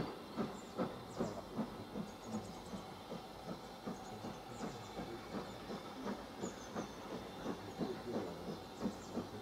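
Steam locomotive exhaust beats, a steady chuff about two and a half to three a second, from an engine working a train.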